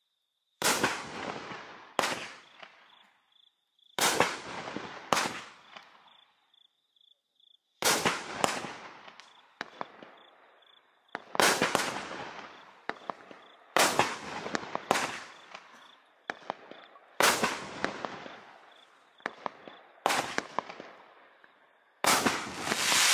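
500-gram consumer firework cake firing its shots one after another, about every one to three seconds. Each shot is a sharp bang followed by a fading crackle. Near the end the shots run together into a dense crackling.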